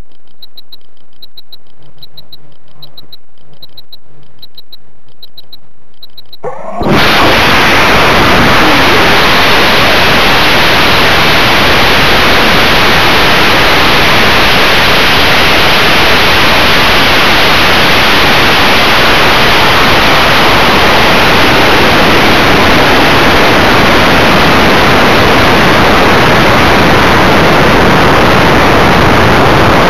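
Onboard-camera audio of a Wildman Wild Thang Extreme rocket on an Aerotech L900 motor. Faint electronic beeps sound about twice a second while it waits on the pad. About seven seconds in, ignition sets off a sudden, loud, steady rushing noise of motor and airflow that holds through the climb.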